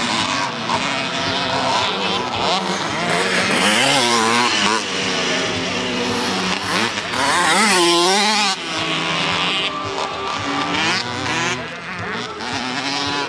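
Several motocross motorcycles racing on a dirt track, their engines revving up and dropping back again and again as they pass, loudest about eight seconds in.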